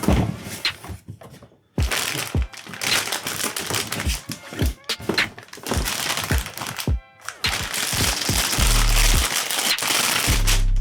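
Background music with a steady beat and long deep bass notes near the end.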